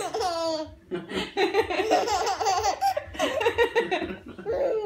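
A four-month-old baby laughing, high-pitched, in three stretches of giggling with short breaks between them.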